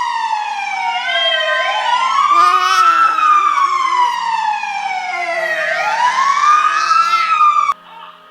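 Emergency siren wailing in slow sweeps, falling and rising in pitch twice, then cutting off suddenly near the end.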